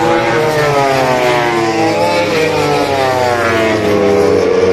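Racing motorcycle engines at high revs, several bikes overlapping, their pitch repeatedly rising and falling as they accelerate and shift around the circuit.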